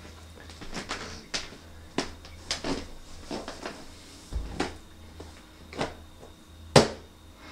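Handling noises from a small cardboard camera box being picked up, turned over and set down: a string of sharp taps, knocks and rustles, the loudest knock near the end. A faint steady low hum runs underneath.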